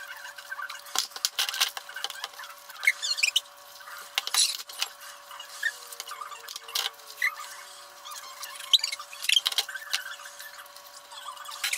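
Washing-up by hand played back about five and a half times fast: a quick run of clinks and clatters of crockery and cutlery, with short high-pitched squeaks and chirps, over a steady high hum.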